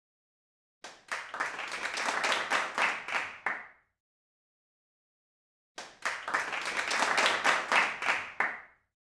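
Applause sound effect: two bursts of crowd clapping, each about three seconds long, the same burst played twice with dead silence between them.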